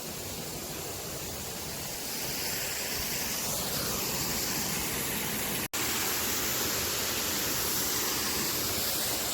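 Waterfall: steady rushing water. It grows louder about two seconds in and drops out for an instant a little past halfway.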